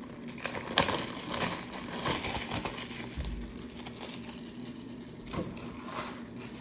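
An Apple Watch box being opened by hand: the sticker seal is pulled off and the packaging crinkles and tears, with a sharp click about a second in and scattered handling sounds after.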